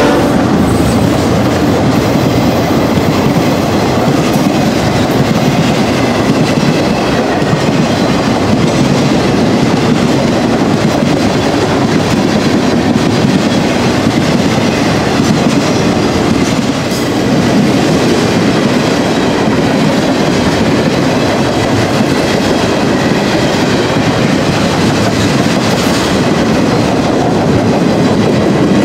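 Loaded BNSF rail train rolling past close by, a steady loud rumble and clatter of freight wheels on the track that dips briefly about two-thirds of the way through.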